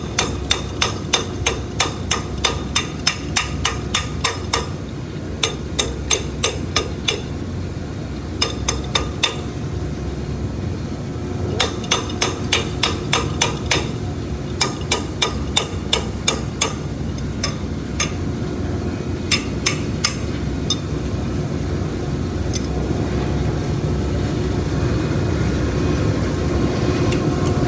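Quick series of sharp hammer taps on a clogged filter discharge pipe, about four a second in bursts, striking to knock the blockage loose. Underneath, the filter system's pump runs steadily; the tapping stops about twenty seconds in, leaving the pump running.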